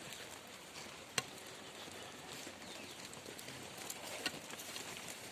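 Sheep and goat pen ambience: a steady hiss with a few sharp clicks or knocks and faint high chirps. No clear bleat.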